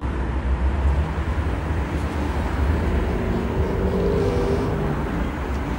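Steady low rumble of traffic, a street ambience, with a faint engine-like hum that swells a little about four seconds in.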